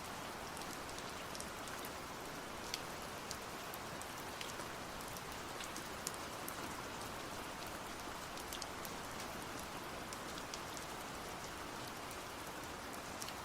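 Steady rain falling, an even hiss with scattered sharp drop taps.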